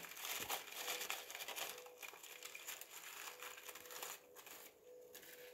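Faint crinkling and rustling of something being rubbed dry by hand, dying away after about four seconds, with a faint steady tone underneath.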